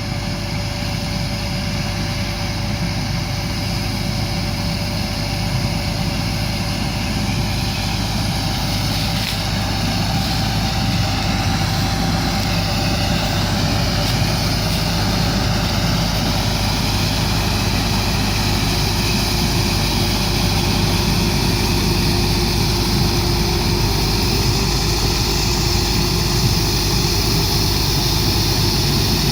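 Heavy harvest machinery running steadily during corn harvest: a constant engine drone with steady whines, slowly getting a little louder.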